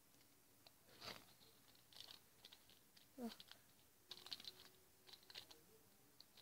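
Faint, scattered crinkles and clicks of plastic zip-lock bags being handled.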